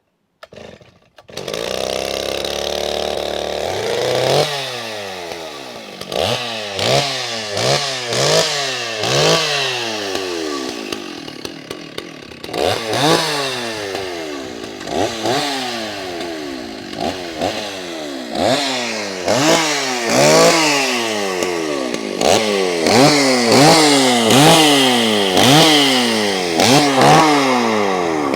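Stihl 064AV two-stroke chainsaw running, revved over and over: the engine pitch shoots up and drops back about once a second, after a few seconds of steadier running at the start.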